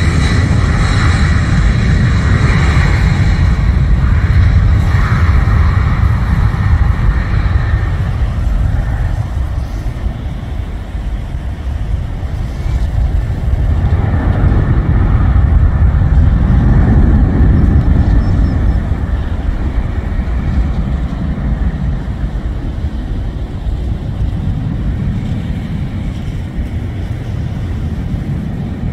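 Boeing 767 freighter's twin jet engines at takeoff power: a loud rumble with a whine as it runs down the runway, the whine fading after several seconds. The rumble swells again about 14 to 18 seconds in as the jet climbs away, then slowly fades.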